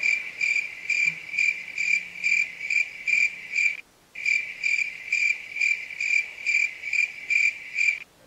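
Cricket chirping, evenly about two chirps a second, starting and stopping abruptly with a short break halfway: a cricket sound effect cut into the soundtrack.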